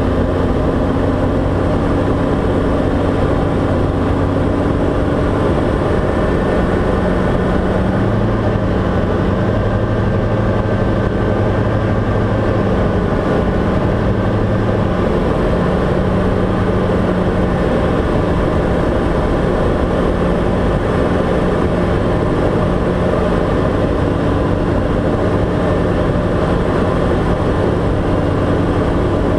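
Diamond DA40's piston engine and propeller droning steadily, heard inside the cockpit on final approach. The engine note shifts slightly about six seconds in and again around fifteen seconds.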